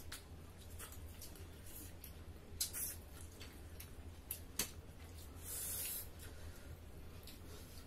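Close-up eating sounds from people eating with their hands: wet chewing and lip smacks with scattered small clicks, two sharper ones a little before the middle, and a brief hiss about five and a half seconds in, over a low steady hum.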